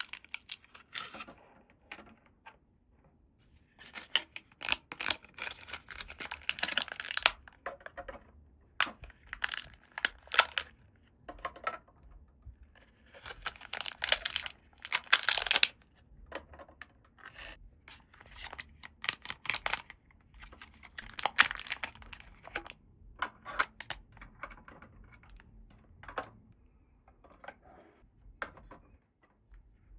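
Packaging and small plastic toy pieces being handled: bursts of tearing and crinkling with sharp clicks, and short quiet gaps between.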